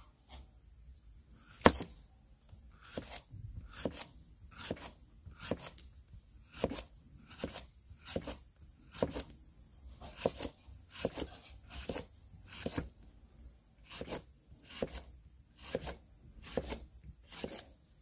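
Victorinox Trailmaster pocket-knife blade slicing through a green onion stalk onto a cutting board: a steady series of crisp cuts, each ending in a light knock of the blade on the board, a little over one slice a second. The first cut, about a second and a half in, is the loudest.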